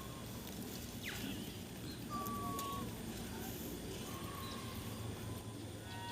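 Faint outdoor ambience: a steady low rumble with a few short, thin whistle-like animal calls and a quick falling chirp about a second in.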